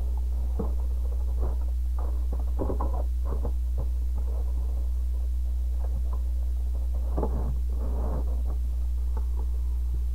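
Steady low electrical hum, with faint scattered knocks and rustles of something being handled.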